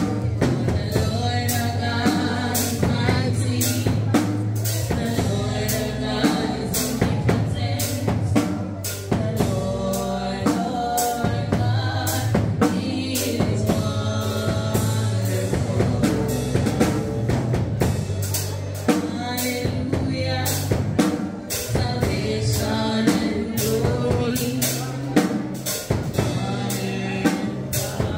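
Live gospel praise music: a woman singing into a microphone over a steady drum-kit beat and keyboard.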